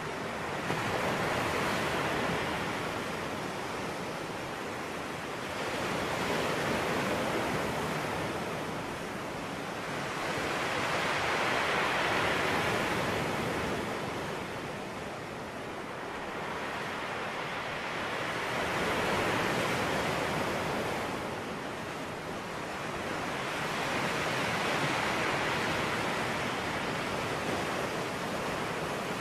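Sea waves washing in: an even rushing noise that swells and fades five times, about six seconds apart.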